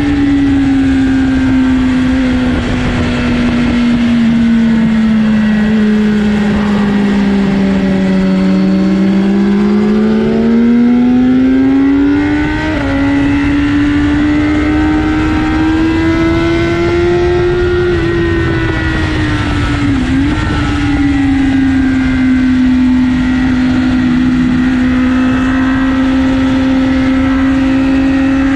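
BMW motorcycle engine running hard on a race track, its note sinking slowly and then climbing, with a sudden step up about halfway through and a brief dip later, over a steady rush of wind noise.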